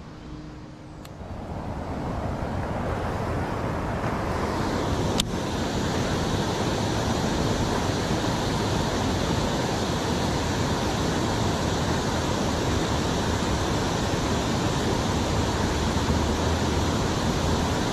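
Water rushing steadily over a river lock's weir, building up over the first few seconds and then holding steady. A single sharp click sounds about five seconds in.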